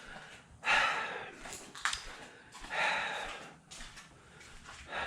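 A man straining and breathing hard in two heavy efforts, each about a second long, as he tries to lift a heavy hydraulic lift ram. A single sharp click falls between them.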